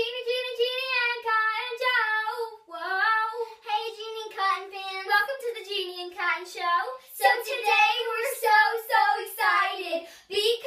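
A young girl singing in a high voice, with no instruments behind her.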